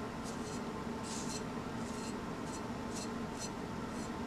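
Soft, short scrapes, about two a second, as baking powder is scraped off a plate into a glass bowl of flour, over a steady low hum.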